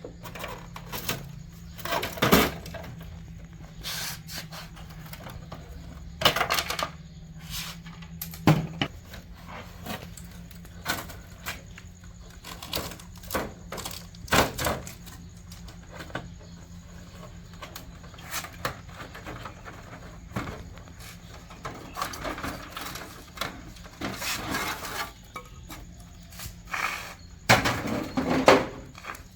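Irregular knocks, clicks and clatter of hard plastic and metal parts being handled, with a few louder clattering bursts, over a faint steady low hum.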